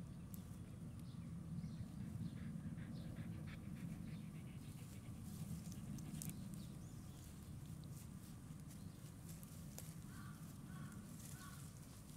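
Shiba Inu puppies sniffing and padding through grass: soft rustles and small ticks over a low steady rumble. Near the end, three short high chirps.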